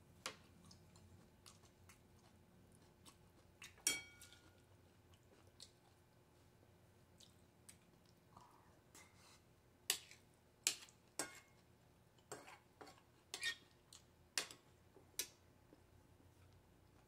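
Quiet sounds of eating: a metal spoon and chopsticks clicking against a ceramic plate. There is one ringing clink about four seconds in, then a run of sharper clicks from about ten to fifteen seconds in.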